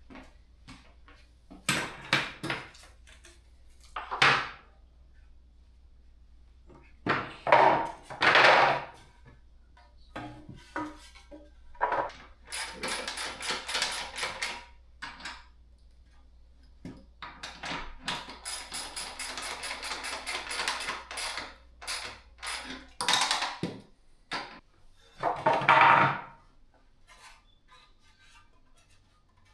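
Hard metal clanks, knocks and rattles of hand tools and stand parts being handled, in scattered bursts. Twice the bursts turn into several seconds of rapid clicking, typical of a wrench or ratchet working a bolt.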